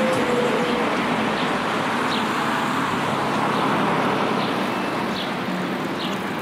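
Road traffic on a town street: a vehicle's tyre and engine noise, fading a little near the end. Short high chirps repeat about once a second through it.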